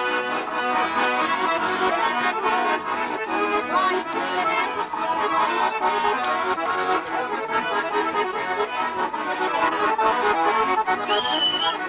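Accordion playing a traditional folk dance tune with a steady beat.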